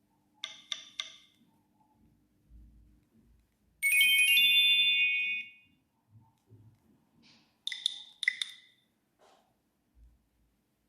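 Nokia E66 phone playing short alert tones through its speaker: a quick run of three electronic pips, a brighter chime held for about a second and a half, then a few more quick pips.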